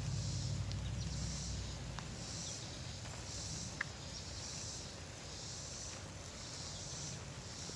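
Insects buzzing in a high pulsing chorus that swells and fades about once a second, over a low rumble that is strongest in the first two seconds. A few faint clicks.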